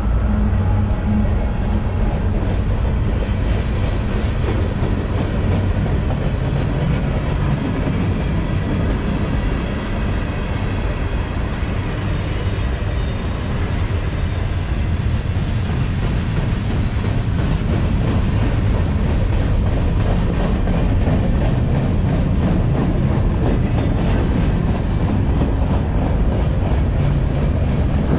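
CSX freight train's cars (covered hoppers, a tank car and boxcars) rolling past close by: a steady, loud rumble of steel wheels on the rails with faint wheel clicks.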